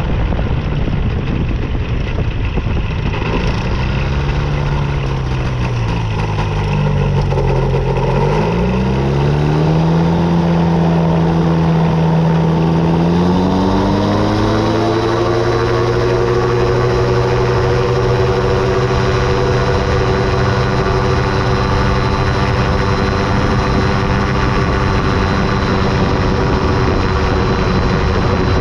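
A model airplane's engine and propeller heard from a camera on the airframe. The engine slows over the first eight seconds, then speeds up in two steps and holds a steady pitch for the second half.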